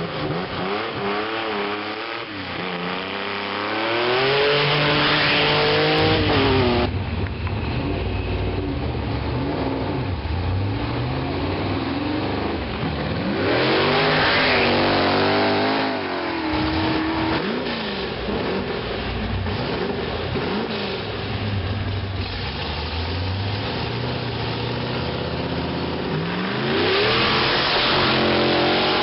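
Open-wheel hill-climb race cars accelerating hard one after another up a gravel road, engines revving up through the gears with rising pitch. There are three loud passes, about four, fourteen and twenty-seven seconds in, with engine sound fading and building between them.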